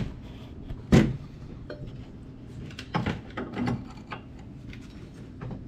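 Metal parts being handled on a workbench: a sharp clank about a second in, then lighter knocks and clatter.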